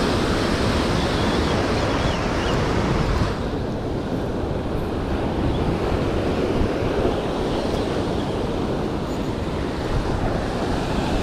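Surf breaking and washing over a rocky shore, with wind on the microphone; the hiss of the water grows duller about three seconds in.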